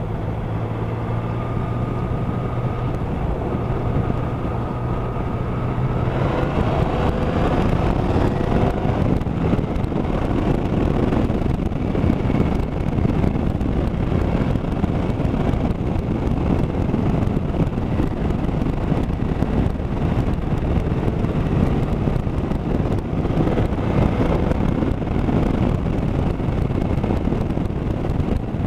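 Motorcycle engine running on the move, steady at first and then rising in pitch as the bike speeds up a few seconds in, with heavy wind rush buffeting the camera microphone that covers most of it from then on.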